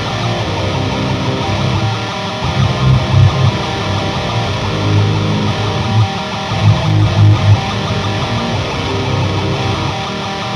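Electric guitar played through a Diezel Herbert amplifier, with heavy low-note chugs that come and go over ringing chords.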